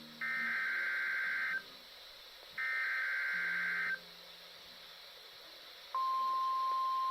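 NOAA Weather Radio Required Weekly Test: two buzzy SAME digital header bursts, each about a second and a half long with a short pause between them. About six seconds in, the steady 1050 Hz warning alarm tone begins.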